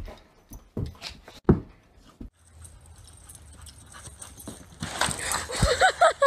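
A dog whining in a few short calls that rise and fall near the end, after several knocks and a loud thump in the first two seconds.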